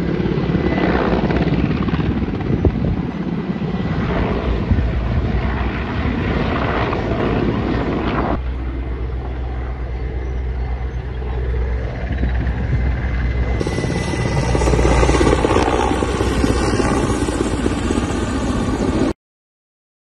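Firefighting helicopter carrying a slung water bucket flying over, its rotors and engines making a steady loud drone. The sound changes abruptly twice where shots are joined, and cuts off suddenly just before the end.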